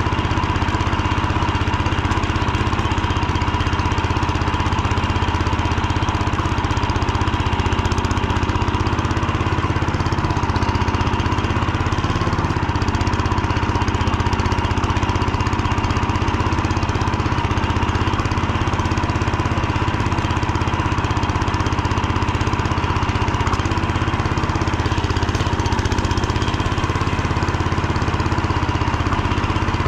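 Motor Sich walk-behind tractor's petrol engine running steadily as the machine travels in fourth gear under light load.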